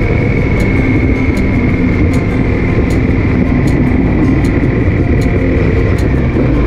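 Motorcycle at highway cruising speed: steady wind rush and engine noise picked up by a camera mounted on the bike, with a constant high whine.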